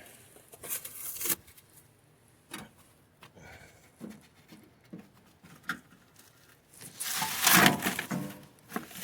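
Scattered light knocks and clicks from parts being handled, then a louder rough scraping clatter lasting about a second, about seven seconds in.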